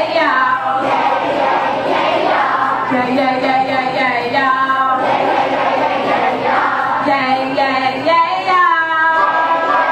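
A woman sings into a microphone, joined by a group of children's voices, in a sung song with long held notes.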